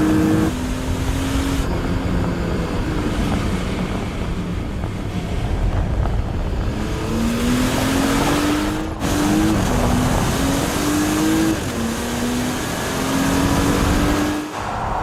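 Car engine accelerating hard, its pitch rising and dropping back in a quick run of upshifts around the middle. The sound breaks off abruptly twice, like cuts between shots.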